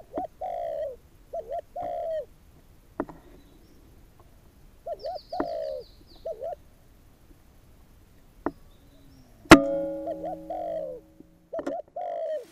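Wild doves cooing in repeated short falling phrases, with a brief higher bird chirping in the middle. About nine and a half seconds in, a single sharp crack of an air rifle shot, the loudest sound, followed by a short ringing hum, then more cooing.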